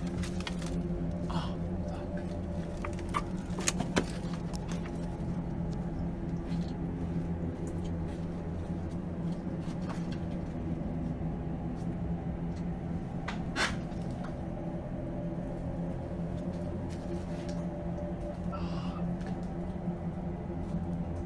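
Steady low droning hum made of several held tones, with a few sharp clicks and knocks: a cluster in the first few seconds and one louder knock about two-thirds of the way through.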